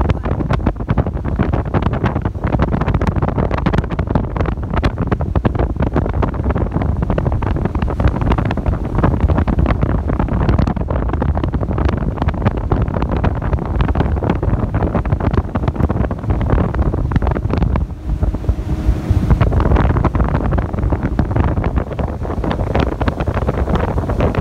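Wind buffeting the microphone on a motorboat under way, a steady loud rush with constant gusty crackle, over the low rumble of the boat running through the water.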